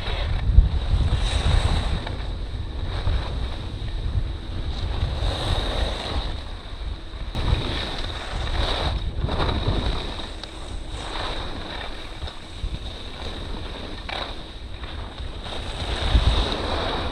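Wind buffeting a moving action-camera microphone during a ski descent, with the rushing scrape of ski edges on hard-packed snow swelling and fading with each turn. A faint steady high whine sits underneath.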